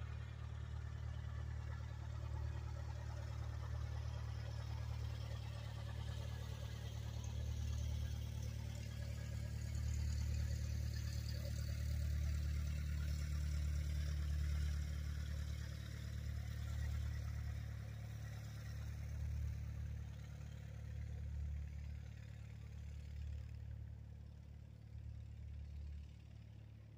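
Cessna 172 Skyhawk's four-cylinder Lycoming engine and propeller at full power on take-off: a steady low drone that grows louder toward the middle, then fades away over the last several seconds.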